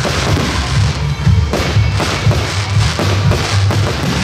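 Aerial fireworks bursting and crackling, with several sharp bangs, over loud music with a pulsing bass beat.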